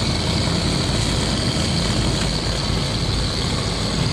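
Cotton candy machine running, its spinner head whirring steadily with a high whine over a low hum.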